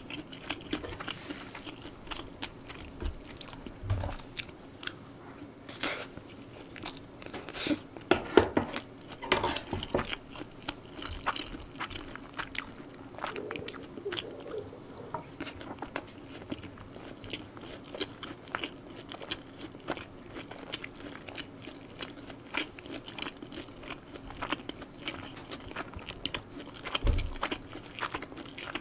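A person chewing and biting into stir-fried spicy pork close to a microphone: a steady run of small, sharp crunches and mouth clicks, busiest about a third of the way in.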